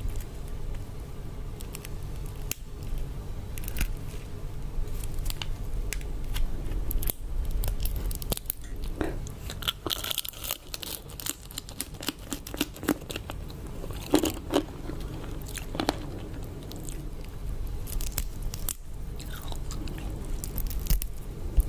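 Close-miked chewing and biting of prawns, with irregular crunches and wet mouth clicks over a steady low hum.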